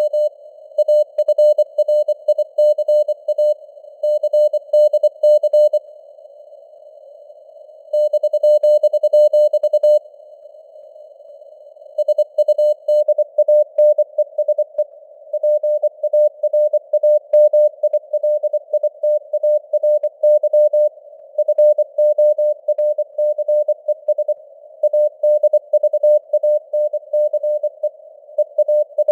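Morse code (CW) at 24 words per minute: a single tone of about 600 Hz keyed in dots and dashes, set in a faint hiss of simulated radio noise. The sending pauses for about two seconds twice, roughly six and ten seconds in.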